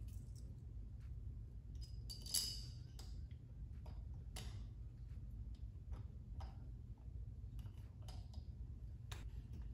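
Scattered small metallic clicks and taps from a nut held on a magnet-tipped screwdriver and an Allen bolt being worked into a light bar's mounting bracket, with a sharper click about two seconds in, over a low steady hum.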